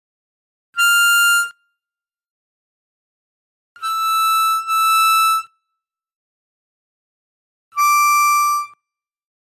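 Diatonic harmonica playing single notes high on the instrument, one at a time with pauses of a couple of seconds between. There is one note, then the same pitch twice in a row, then a slightly lower note.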